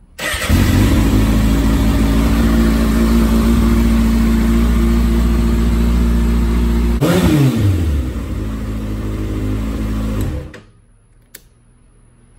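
2019 Kawasaki ZX-6R inline-four engine running at a steady speed after an oil change, warmed up before the oil level is checked. About seven seconds in there is a quick throttle blip whose revs fall back, and the engine cuts off about ten and a half seconds in.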